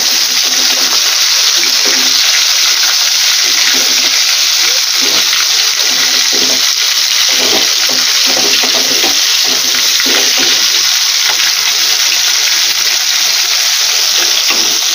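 Pangas fish pieces shallow-frying in hot mustard oil, a loud, steady sizzle as their second side cooks after being turned.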